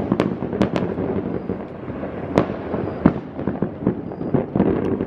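Many fireworks going off across a city at once: a continuous din of distant bursts with frequent sharp bangs and cracks, the loudest about two and a half and three seconds in.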